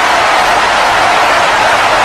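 Crowd cheering steadily, a dense, even wash of many voices with no single call standing out.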